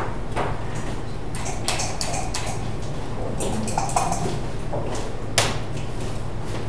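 Scattered light clicks and knocks, the sharpest right at the start and about five seconds in, over a steady low hum.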